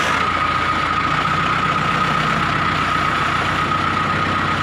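Mahindra 555DI tractor's diesel engine running steadily, with a continuous high whine over it; the deeper engine note strengthens about a second in.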